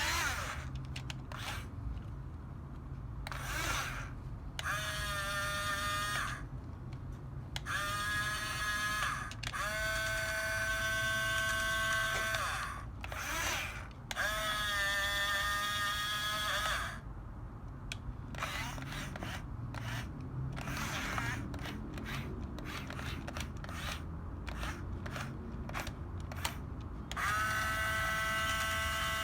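Small electric gear motors of a Huina 6-channel RC bulldozer whining in about five bursts of one to three seconds each, the pitch rising slightly as each burst starts. In a stretch in the later part there are many short clicks and clatters instead.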